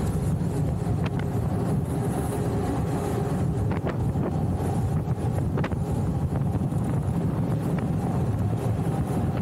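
Street luge wheels rolling fast on asphalt, with wind rushing over the microphone: a steady, even roar, with a few faint brief ticks.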